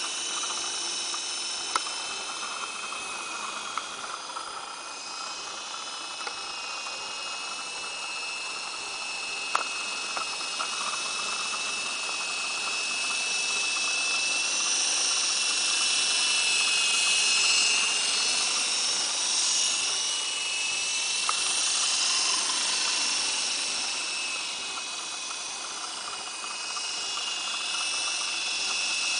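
Esky Big Lama radio-controlled coaxial helicopter in flight: its electric motors give a high whine over the rotor noise, wavering slightly in pitch. It grows louder toward the middle, fades a little later on and swells again near the end.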